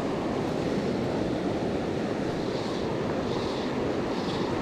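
Steady rush of a fast-flowing river running over shallow, stony riffles.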